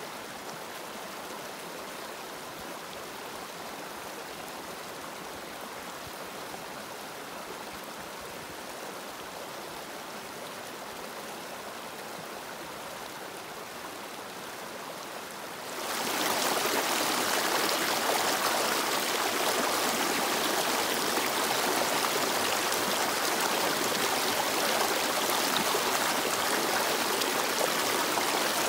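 Flowing river water: a steady rushing stream sound. About halfway through it becomes abruptly louder and brighter, and it holds at that level.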